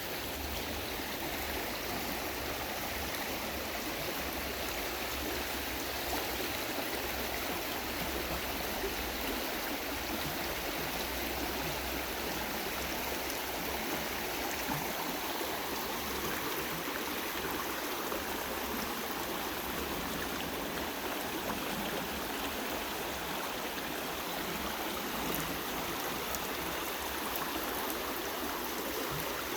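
A river flowing over rocks, a steady rushing of water.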